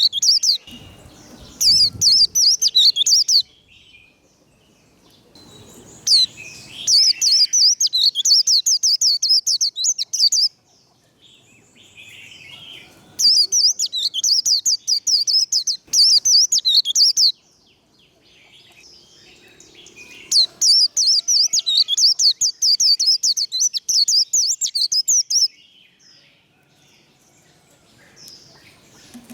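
White-eye (vành khuyên) singing its rapid, high-pitched warbling 'líu' song. It comes in about four bursts of a few seconds each, with short pauses between them.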